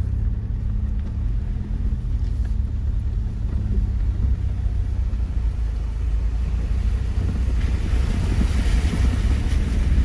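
Jeep's engine and tyres rumbling steadily at low speed over gravel, heard from inside the cabin. From about eight seconds in, a rushing splash joins it as the wheels roll through the shallow water of a concrete ford across a creek.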